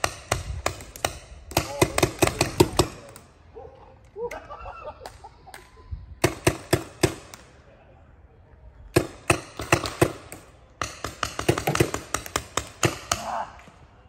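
Paintball markers firing in rapid strings of sharp pops, several shots a second, in four volleys with short pauses between; distant shouting in the first pause.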